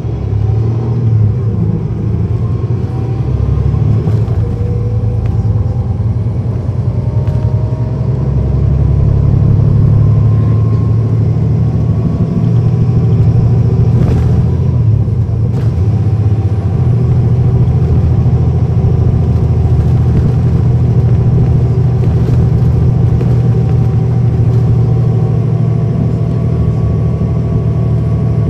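Cummins ISL9 diesel engine and ZF Ecomat automatic transmission of a 2010 NABI 40-SFW transit bus, heard from on board. The bus accelerates over the first several seconds with a whine rising in pitch, then runs steadily at speed with a deep rumble.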